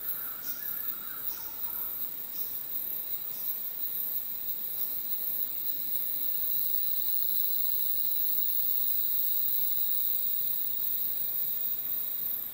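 Rainforest insect chorus: a very high pulsing trill repeating about twice a second over a steady high-pitched whine, which swells in the middle.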